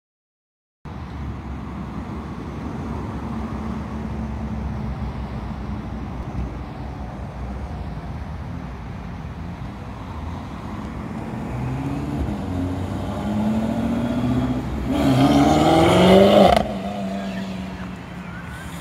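BMW M6 engine running, then accelerating as the car pulls away, its pitch climbing over several seconds to its loudest before dropping off sharply near the end, leaving a quieter, lower engine sound.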